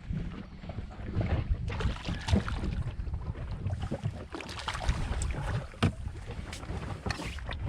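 Wind buffeting the microphone in gusts over the sound of the sea, with scattered sharp clicks and knocks.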